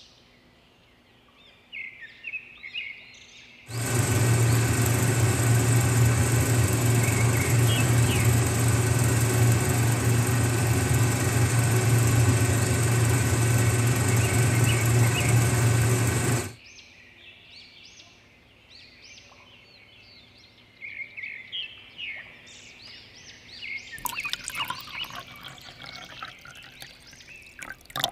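Miniature concrete mixer's small electric motor runs steadily for about thirteen seconds, turning its drum, and switches on and off abruptly. Birds chirp in the background. Near the end there is clattering and handling as the drum is tipped and the wet mix poured out.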